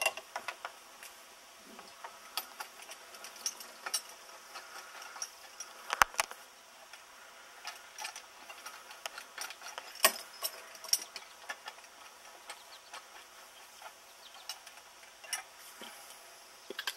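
Scattered clicks and knocks of metal hardware being handled and fitted onto the top of a well drop pipe held in a pipe wrench, as the pulley system is attached. The loudest knocks come about six and ten seconds in.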